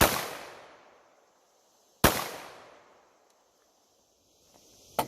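Two shots from an FN 509T 9mm pistol firing Federal 115-grain rounds, about two seconds apart, each echoing away over about a second. A short sharp click follows near the end.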